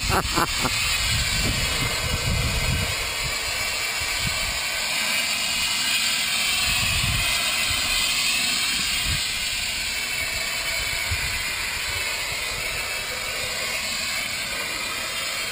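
A steady hiss with irregular low rumbles underneath.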